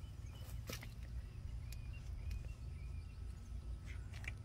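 Quiet outdoor ambience: a steady low rumble of wind on the microphone, faint short bird chirps, and a couple of light clicks about a second in.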